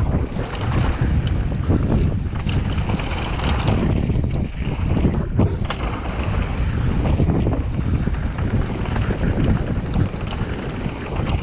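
Wind rumbling on an action camera's microphone as a Cube Stereo mountain bike rolls fast down a dirt and gravel trail, with the tyres crunching and the bike clattering over stones many times.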